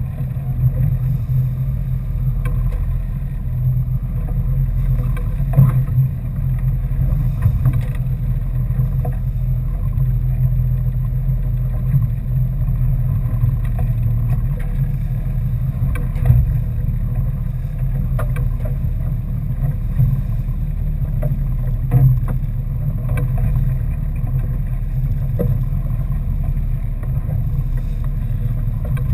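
Fishing boat's engine running steadily under way, with wind and water rushing past the hull. A few sharp knocks from gear on deck.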